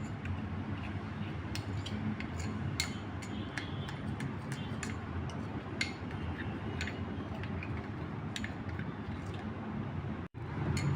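A spoon stirring a thick honey, black pepper, turmeric and lemon juice mixture, clicking and tapping irregularly against the sides of its container, about one to three clicks a second.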